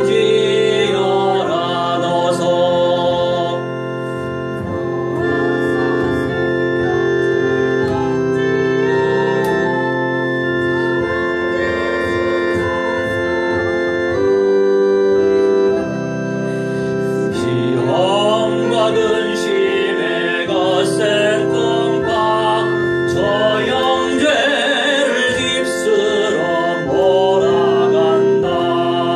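A man singing while playing sustained organ-style chords on an electronic keyboard. The held chords carry on throughout; his voice is strongest in the first few seconds and again through the second half.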